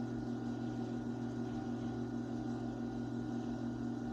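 Electric potter's wheel running at a steady speed, a constant motor hum.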